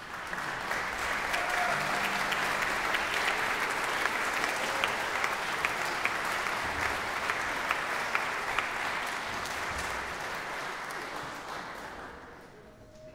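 Audience applauding, the clapping swelling in at the start and dying away over the last few seconds.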